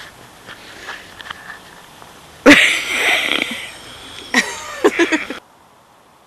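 Close non-speech vocal sounds: a sudden loud breathy burst, then a few short squeaky cries about two seconds later, cutting off suddenly.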